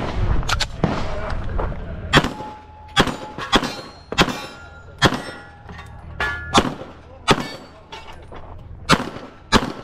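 Pistol shots fired in a practical-shooting stage: about ten sharp reports at uneven intervals, some half a second apart and others a second or more, with pauses between strings.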